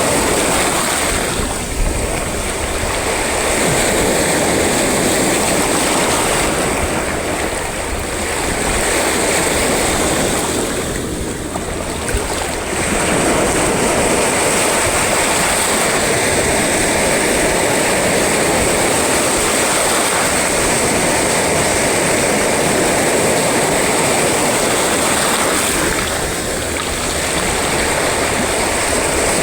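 Sea waves breaking on a shore: a continuous wash of surf that eases briefly four times.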